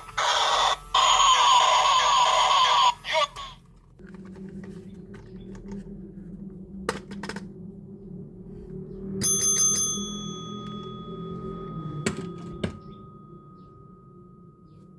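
Toy police car's electronic siren sounding in short chopped bursts, then cutting off about three and a half seconds in. Quiet plastic handling clicks follow, and about nine seconds in a single bright bell-like ding rings out and slowly fades.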